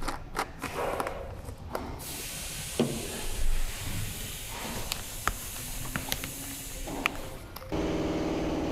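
Automatic transmission fluid poured from a plastic bottle through a funnel into a gearbox case, heard as a steady hiss of running liquid after a few handling clicks. Near the end a steady low hum starts.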